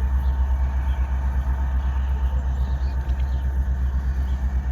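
Steady low rumble of the diesel locomotives leading a heavy BNSF coal train.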